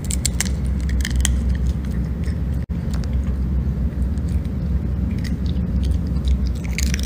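Small dog chewing a treat, with crisp crunches in the first second or so and again near the end, over a steady low rumble.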